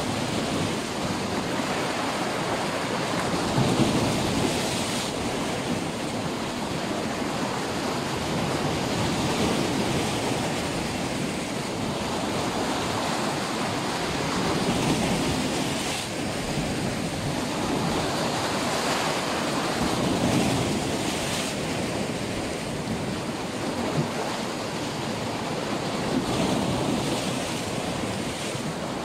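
Black Sea waves breaking and washing in, swelling about every five or six seconds.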